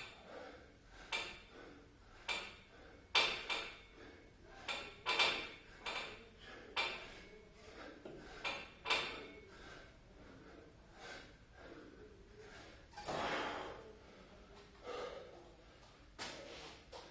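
A man's short, forceful breaths during a set of pull-ups, about one a second, with a longer breath about 13 seconds in.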